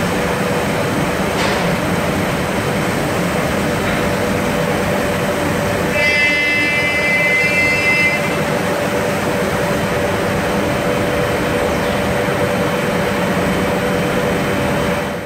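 Multi-axis CNC wood router with a tilting spindle head, running steadily with a spindle hum over a noisy background. A higher whine comes in for about two seconds near the middle.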